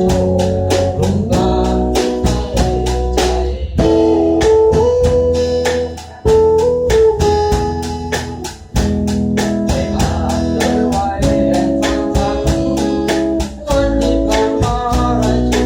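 Music: a song with plucked guitar over a steady beat.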